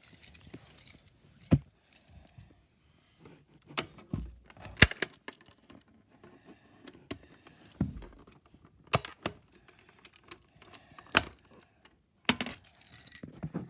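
Handling noise: irregular sharp clicks and knocks, with short jangling, rattling bursts at the start and near the end. No alarm is sounding.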